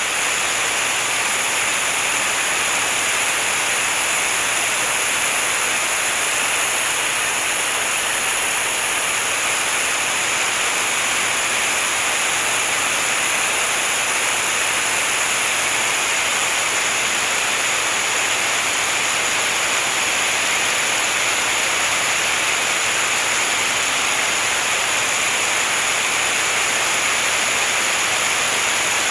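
A steady, unchanging rushing hiss, strongest in the upper range, with a few faint high steady tones running through it.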